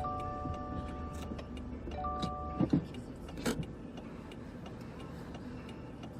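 Inside a car with a low steady rumble and scattered ticks, while an electronic tone of several pitches sounds twice, each for about a second. Two short thumps come in the middle, the louder one just before three seconds in.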